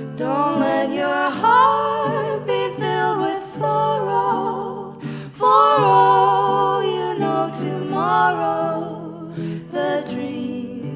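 Two women singing long, gliding harmonies over a strummed acoustic guitar, with no clear words.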